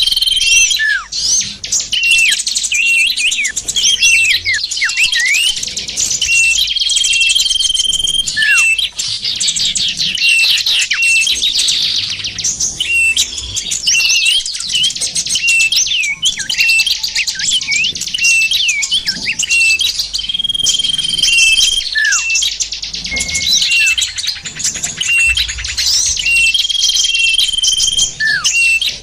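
Small songbirds chirping and twittering in a dense chorus, a bird-trapping lure call: quick high notes, many sweeping downward, with a held whistle that recurs every six or seven seconds.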